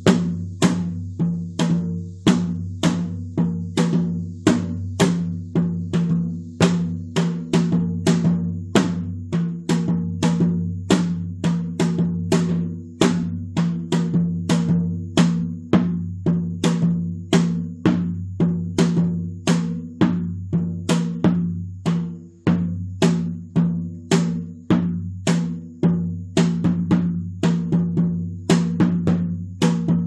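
Janggu, the Korean hourglass drum, struck in a steady even beat of about two strikes a second, over a steady low hum.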